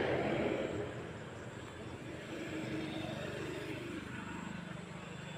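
Steady outdoor background noise, a low rumble of the kind traffic makes, with faint voices under it.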